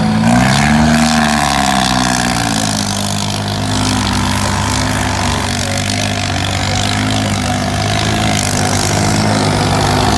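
Kubota tractor diesel engine working under load as the tractor pushes sand with its blade. It revs up and falls back about a second in, then runs at a steady, slightly wavering speed.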